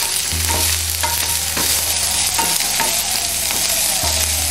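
Shallots, garlic, ginger and curry leaves sizzling in hot coconut oil in a nonstick pan, stirred with a wooden spatula that scrapes and knocks against the pan every half second or so.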